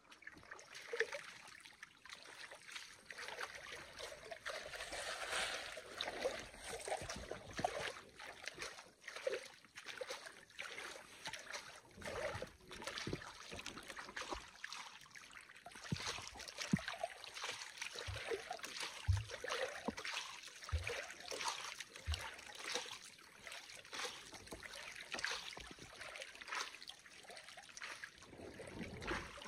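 Water sloshing and trickling as a large gold pan is swirled and dipped in shallow muddy water, washing the light sediment out over the rim.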